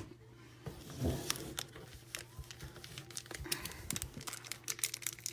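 Foil trading-card pack wrappers crinkling and being torn open: a run of small crackles and clicks that grows busier after about three seconds.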